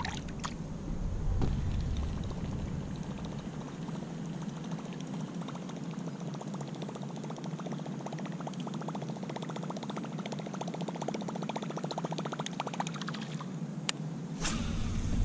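A splash of water at the kayak's side, then several seconds of fast, even ticking and churning as a topwater plopper-style lure is reeled back in; a sharp click near the end.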